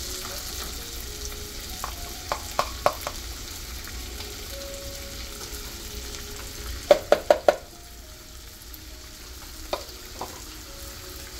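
Diced bell peppers and onion sizzling in hot melted butter and oil in a frying pan while being stirred with a wooden spoon. A few light clicks come early, and a quick run of four sharp knocks on the pan comes a little past halfway.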